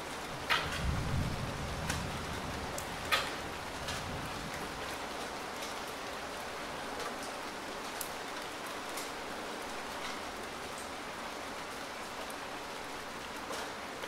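Steady rain, an even hiss with a few sharper, louder drop splats about half a second and three seconds in, and a brief low rumble about a second in.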